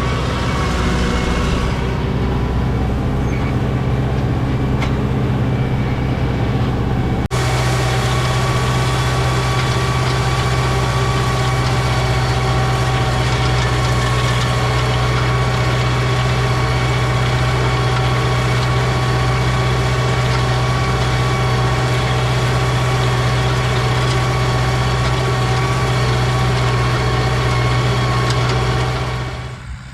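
Farm tractor engine running steadily at high revs, about 1700 rpm, driving a hay tedder through the PTO. The sound drops away just before the end.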